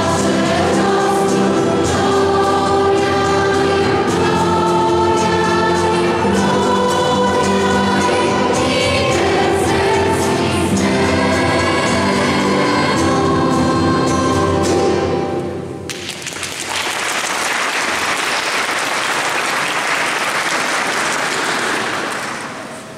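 A choir sings a Christmas carol, and the song ends about fifteen seconds in. Then the audience applauds for several seconds.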